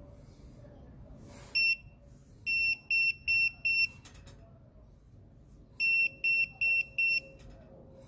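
Non-contact voltage detector pen beeping as it detects a live conductor, in short runs of high-pitched beeps: one beep about one and a half seconds in, four quick beeps around three seconds, then four more near six to seven seconds.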